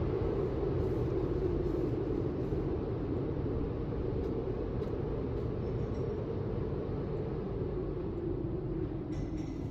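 Steady rumble of an automatic tunnel car wash's machinery running, heard from inside the car's cabin.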